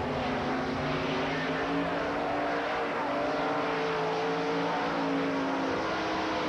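Dirt late model race cars' V8 engines running at speed around the track. Several engines drone together, their pitch shifting slightly.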